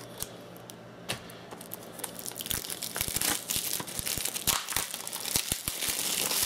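Plastic shrink wrap on a Blu-ray case being opened and torn off, crinkling. A few light clicks come first, then the crinkling and tearing grow steadily louder from about two and a half seconds in.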